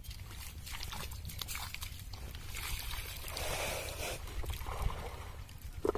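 Water gushing from the outlet of a lay-flat plastic irrigation pipe and splashing onto wet, muddy ground, fed by a small diesel pump set whose engine keeps up a steady low rumble underneath. The splashing swells in the middle, and a short sharp sound stands out near the end.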